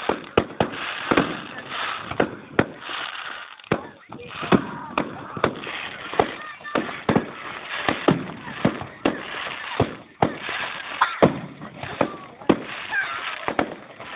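Fireworks display: aerial shells bursting in an irregular series of bangs, about one or two a second.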